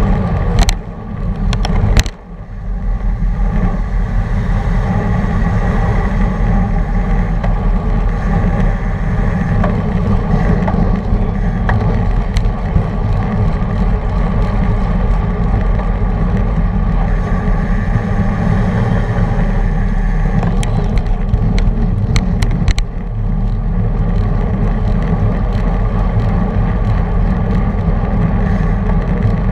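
Wind buffeting the microphone of a camera mounted on a racing bicycle at speed, a steady heavy low rumble. A few sharp clicks cut through it near the start and again around two-thirds of the way through.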